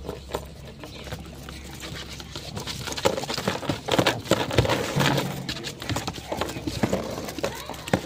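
German Shepherd thrashing in an epileptic seizure: its jerking legs and chain knock and clatter rapidly and irregularly against the board it lies on, growing louder and busier about three seconds in.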